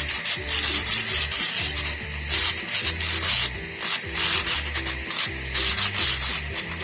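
Handheld fiber laser cleaning head hissing and crackling in uneven bursts as it strips paint off a surface, over background music with a stepping bass line.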